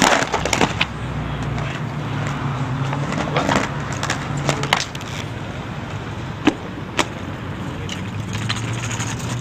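Aggressive inline skates hitting and grinding a metal handrail and landing on concrete. A loud clack comes at the start, and scattered sharp knocks follow over a steady background hiss.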